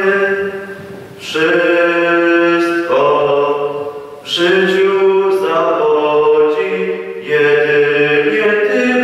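Mixed youth choir singing slow, chant-like held chords without accompaniment, phrase by phrase, with short breaks for breath about a second in and again about four seconds in.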